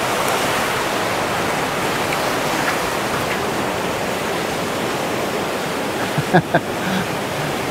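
Steady rushing of fast-flowing mountain water from a waterfall or runoff, with a couple of short, sharp sounds about six seconds in.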